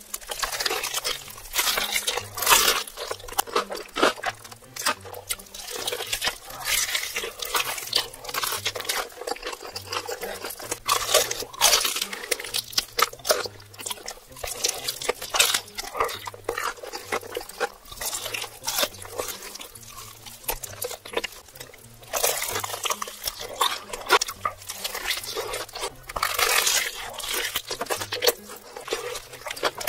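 Close-miked eating of a spicy red-sauced fried chicken drumstick: crisp crackling bites of the coating, then chewing and lip smacking, in dense runs of crunchy clicks with heavier bursts of biting every few seconds.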